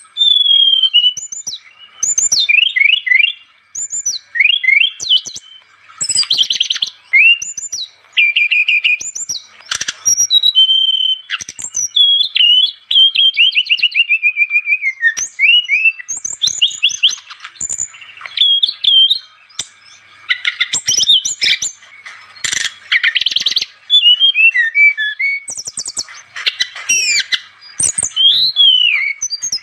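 Brown-chested jungle flycatcher (sikatan rimba dada coklat) in full song: a nonstop, varied run of whistled notes, quick rising and falling glides and fast chattering phrases, broken only by brief pauses.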